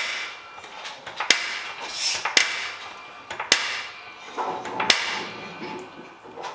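Five sharp metal-on-metal clanks, each ringing on briefly, spaced a little over a second apart.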